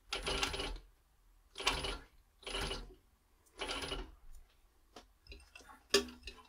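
Post-bed leather sewing machine with top and bottom roller feed running in four short bursts, each about half a second, sewing a few stitches through leather. A few light clicks follow, with one sharper click near the end.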